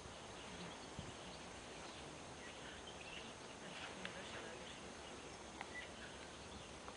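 Faint outdoor background noise, a steady hiss, with a few soft, distant bird chirps now and then.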